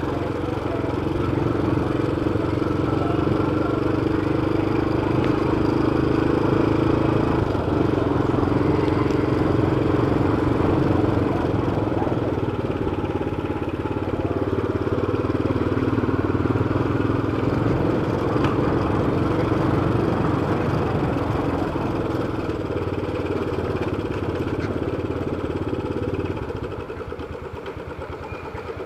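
Motorcycle engine running steadily while riding through town streets, heard from the bike itself. It drops in level near the end as the rider eases off.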